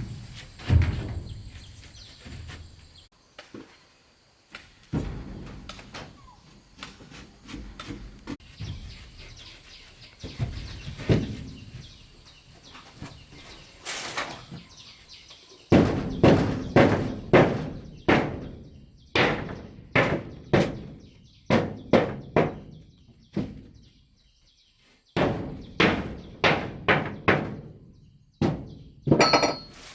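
Wood being struck repeatedly with a hand tool: scattered knocks at first, then runs of sharp blows about two a second in the second half, with a short pause before the last run.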